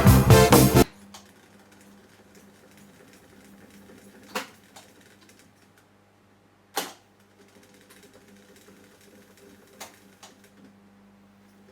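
Music playing back on an Akai GX630DB reel-to-reel tape recorder stops under a second in. Then comes the machine's low steady hum with faint mechanical ticking, and three sharp clicks from the deck, the middle one loudest.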